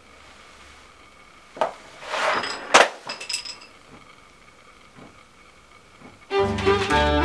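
A sharp click, a brief rustle, then a loud knock and a few ringing clinks of hard objects on a wooden table, followed by a few faint taps. Violin string music starts near the end.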